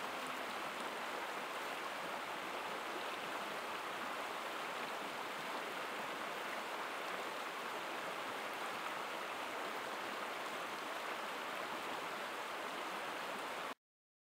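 Steady rushing of flowing stream water, an even, unchanging sound that cuts off suddenly near the end.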